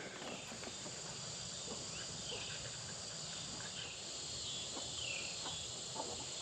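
Crickets and other insects chirring steadily in a rural outdoor chorus, with a few short falling chirps and some faint ticks near the end.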